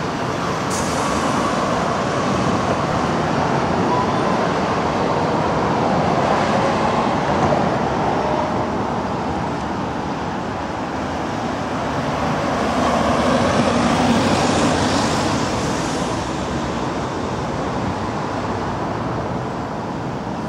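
Road traffic noise on a busy multi-lane street: a steady rush of passing cars and vans that swells twice as vehicles go by.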